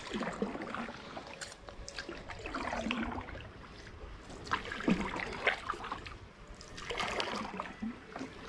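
A paddle dipping and pulling through water about every two seconds, with water trickling and dripping off the blade between strokes.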